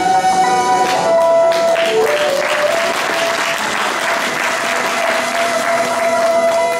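An audience clapping over instrumental music that keeps a sustained melody going. The applause comes in about two seconds in and dies away near the end.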